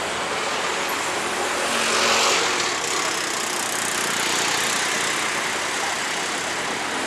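Steady road traffic noise, with one vehicle passing louder about two seconds in.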